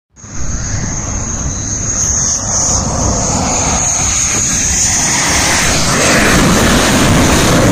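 Naval Tejas light combat aircraft's single turbofan jet engine running as it comes in to land: a loud, steady jet noise with a high-pitched whine over it, getting a little louder after about six seconds.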